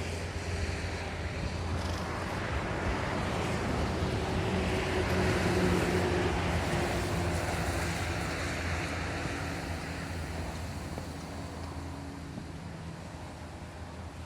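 A motor vehicle running and moving, its low engine hum under road and wind noise that builds to a peak around the middle and then slowly fades.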